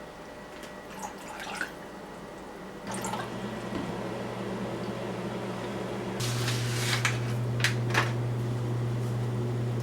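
A steady low hum starts about three seconds in and gets louder about three seconds later, with a few light clinks near the end.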